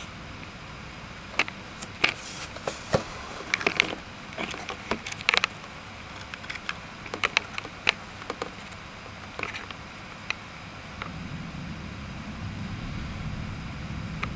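Scattered sharp taps and ticks, irregular and several a second, over a steady hiss, typical of heavy raindrops striking a hard surface in a storm. A low rumble builds in the last few seconds.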